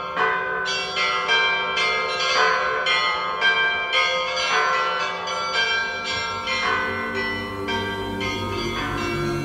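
Church bells ringing: several bells of different pitches struck in a quick, even pattern of about two strokes a second, each stroke ringing on into the next.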